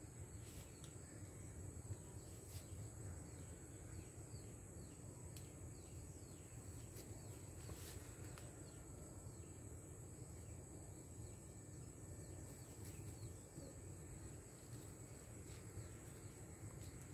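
Faint, steady, high-pitched trill of insects, likely crickets, over a low background rumble, with a few faint clicks.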